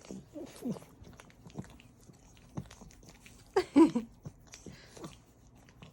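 French bulldog puppy licking and smacking its mouth: a run of small wet clicks and smacks, which the owner calls kisses. A louder, short pitched sound that bends in pitch comes about halfway through.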